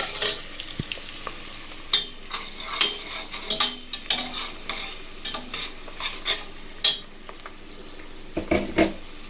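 Sliced onion and whole spices frying in hot oil in a pan, with a light sizzle under irregular scrapes and clinks of a spoon stirring against the pan.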